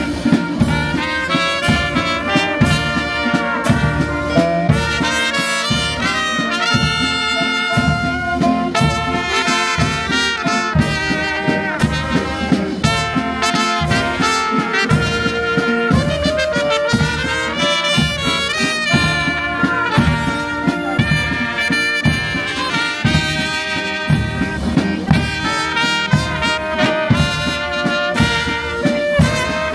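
Brass band playing a tune, trumpets and trombones over a steady beat.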